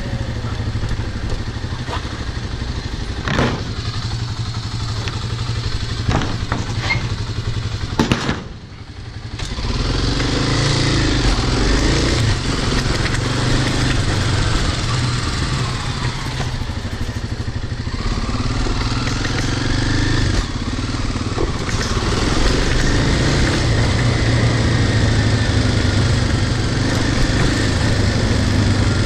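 Kawasaki dirt bike engine running under way, its pitch rising and falling with the throttle. It drops off briefly about eight seconds in, then pulls again. There are a few sharp knocks in the first eight seconds.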